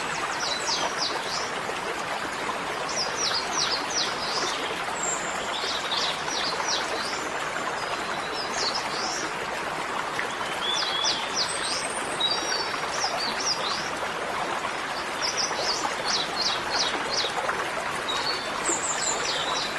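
Small birds chirping in short, quick phrases every couple of seconds over a steady rushing background noise.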